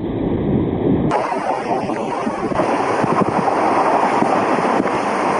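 Wind rushing over the microphone at the open window of a moving train, over the train's steady running rumble.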